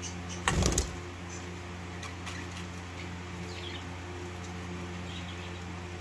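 Steady low hum with a brief knock about half a second in, and a few faint, short high peeps from baby budgerigar chicks in the nest, once around the middle and again near the end.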